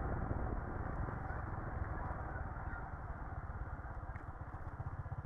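Motorcycle engine running at low speed as the bike rolls along, a steady pulsing throb under road and wind noise; it eases off a little in the second half.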